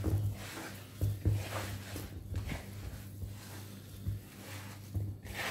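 Hands rubbing and squeezing damp, crumbly semolina dough against a wooden bowl: irregular soft scraping strokes with a few light knocks, over a steady low hum.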